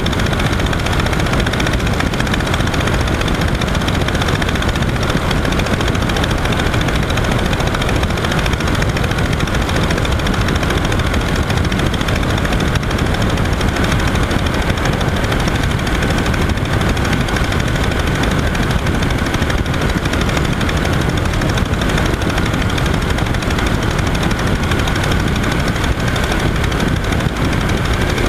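Verner 3V three-cylinder radial engine and propeller of a Legal Eagle XL ultralight running steadily in flight, a fast, even stream of firing pulses, with wind rushing over the strut-mounted microphone.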